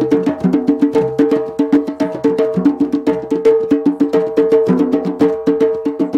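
Live drums played in a fast, steady rhythm of several pitched strikes a second.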